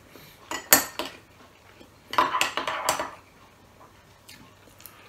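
Metal spoon clinking and scraping against tableware: a few sharp clinks just under a second in, then about a second of scraping and clatter around two seconds in, and faint taps near the end.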